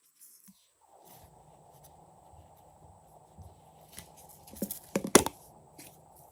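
Glossy slime being stretched and squeezed by hand, giving sticky clicks and pops, with the loudest cluster of pops about five seconds in. A faint steady hiss starts about a second in.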